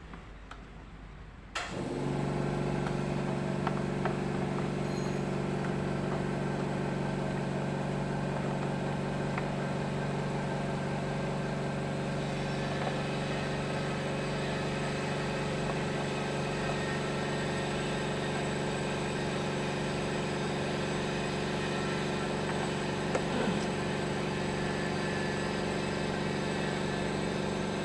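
Honda HR-V car engine idling steadily after a tune-up, its injectors and intake just refitted; the engine sound comes in suddenly about two seconds in.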